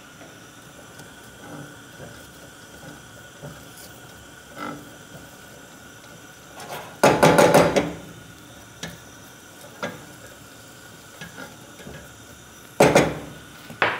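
Wooden spatula stirring onion and garlic in a stainless steel pot, knocking and scraping against the metal, with two louder clatters, one about seven seconds in and one near the end.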